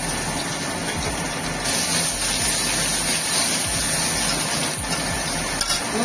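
Sliced onions sizzling steadily in hot ghee with panch phoron in a kadai, just after going into the pan.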